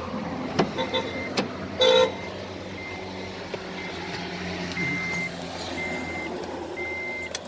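A few knocks and a clunk inside a car, then the car's electronic warning chime beeping at about one-second intervals over a steady background hum, with the ignition on before the engine is started.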